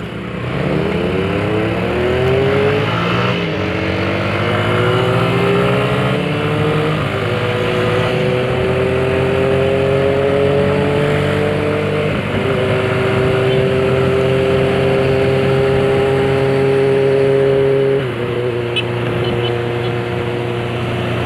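Motorcycle engine accelerating through the gears, its pitch climbing and stepping down at shifts in the first dozen seconds, then running at a steady cruise. Near the end it eases off.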